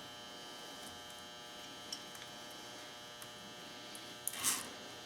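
Steady electrical hum with quiet handling of steel wire-rope clamps on a winch cable: a small click about two seconds in and a short metallic scrape near the end.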